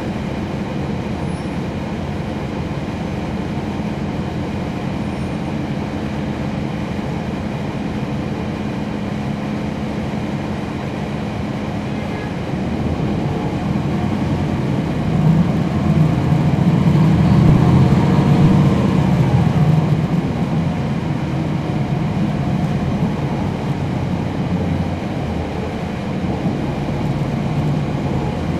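Cummins ISL9 diesel engine of a NABI 416.15 transit bus, heard from on board, running steadily with a low hum. About halfway through it grows louder for several seconds, then eases back.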